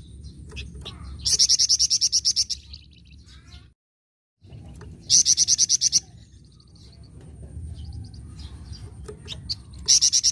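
Flamboyan songbird giving its rapid, rattling 'nyecret' trill: three bursts of quick repeated high notes, about ten a second and each lasting about a second, with faint chirps between them.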